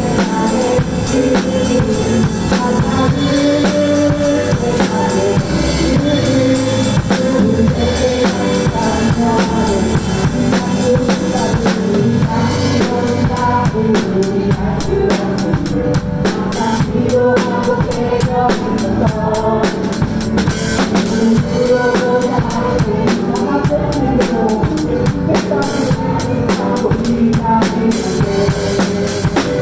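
Drum kit played along to a recorded worship song backing track, with bass drum, snare and cymbals keeping a steady beat; the cymbal strokes grow denser about halfway through.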